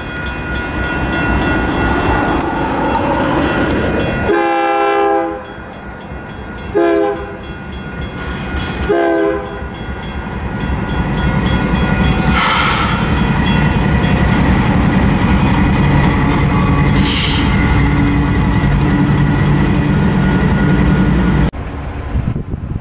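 Union Pacific diesel freight locomotive sounding its air horn in three blasts for a grade crossing, the middle blast short, while the crossing bell rings. The locomotive then rolls through the crossing with its diesel engine running loudly.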